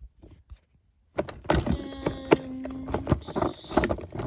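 Plastic and silicone fidget toys handled and set down: a string of knocks and clicks, with a held squeaky tone lasting about a second and a half near the middle.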